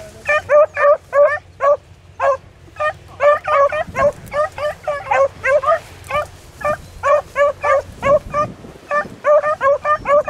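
Beagles baying: short, rapid calls, about three or four a second, with brief breaks, now and then two voices overlapping. This is the hounds giving tongue as they run a rabbit's scent line.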